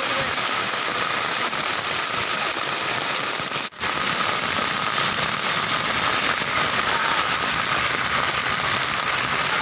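Heavy rain pouring down with a steady, dense hiss. It breaks off for an instant a little under four seconds in, then continues.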